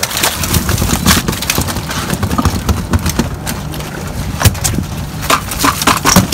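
Boat engine idling with a steady low hum, under irregular knocks and rattles from a lobster hoop net's wire frame and mesh being handled.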